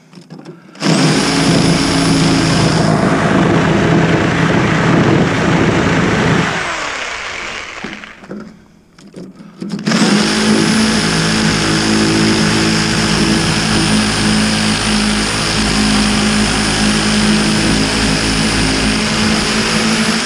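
Reciprocating saw (Sawzall) cutting through the end of an air conditioner's copper-and-aluminum coil, in two runs. The first lasts about six seconds and winds down; after a short pause the second starts about ten seconds in and runs steadily with a high whine.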